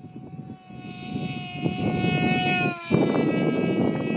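TekSumo flying wing's electric motor and propeller whining as it passes low, the pitch gliding down as it goes by. Wind rumbles on the microphone and grows louder through the pass.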